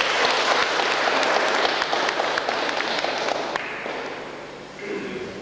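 Audience applauding, a dense patter of clapping that dies away over the last couple of seconds.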